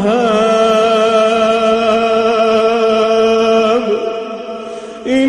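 A male Quran reciter's voice chanting in melodic tajweed style, holding one long steady note for nearly four seconds. It then breaks off into a quieter, wavering stretch before a new held note begins near the end.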